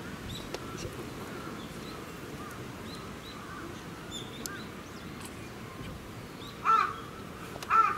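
Crows cawing: faint scattered calls, then two loud caws near the end.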